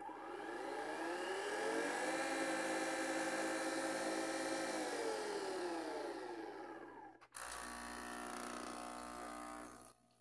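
Nespresso Vertuo Next capsule-spinning motor whining as it spins the pod holder up, rising in pitch, holding steady at speed, then winding down and stopping about seven seconds in. A lower, steady buzzing machine hum follows until near the end.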